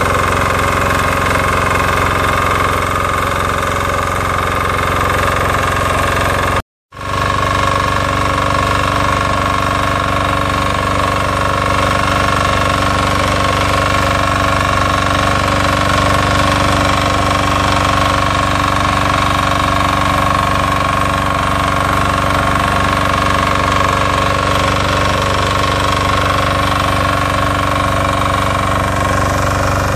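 12 hp Weima BSR 1100 BE walk-behind tiller's single-cylinder diesel engine running steadily under load as its rotary tines work through the soil. The sound cuts out completely for an instant about seven seconds in.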